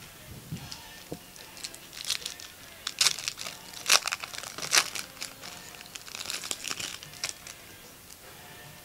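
Foil trading-card pack wrapper crinkling and tearing open by hand, in a run of sharp crackles, loudest around three to five seconds in.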